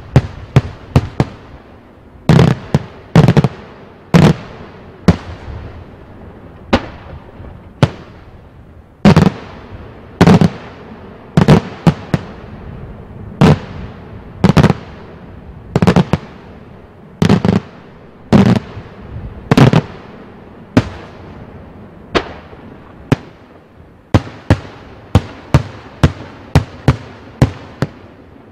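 Daytime aerial fireworks shells bursting in a long, irregular series of sharp bangs. The louder bangs have a short echoing tail, and there are faster runs of smaller bangs near the start and near the end.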